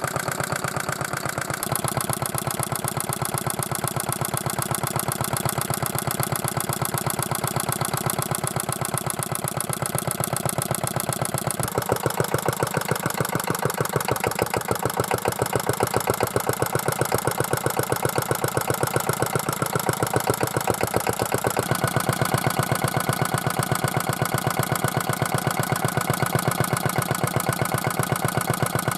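Small single-cylinder, hopper-cooled stationary diesel engine running at a steady idle, an even train of firing strokes.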